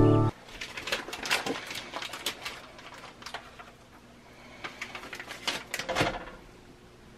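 Plastic bacon packaging crinkling and crackling as it is handled and opened, a string of short, sharp crackles, the loudest about six seconds in.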